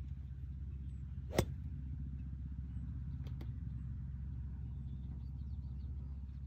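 A single sharp crack of a golf club, a 5 wood, striking the ball off the fairway about a second and a half in, over a steady low rumble.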